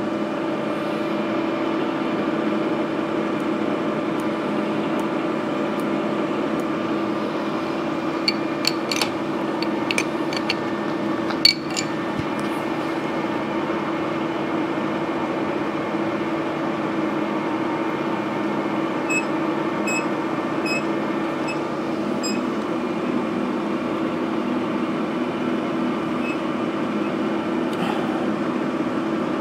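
Steady machine hum holding one pitch throughout, with a few sharp metallic clicks about eight to twelve seconds in and a short run of faint, evenly spaced ticks around twenty seconds.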